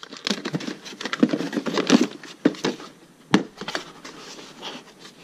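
Hands rummaging through cardboard packaging and opening an orange plastic reloading-die case, making rustling and scraping with scattered clicks. One sharp click comes a little past halfway.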